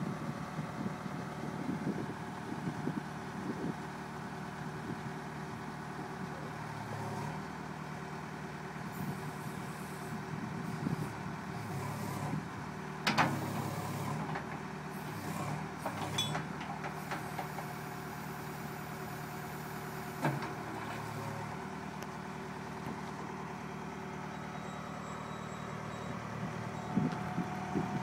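2009 Case 580M Series 2 backhoe loader's diesel engine running steadily, with a few sharp knocks about halfway through as the backhoe boom is worked.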